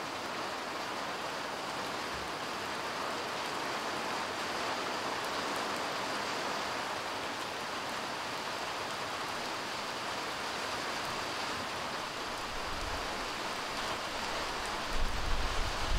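Light rain falling steadily on parked cars and wet ground, an even hiss. Near the end, gusts of wind buffet the microphone with a low rumble.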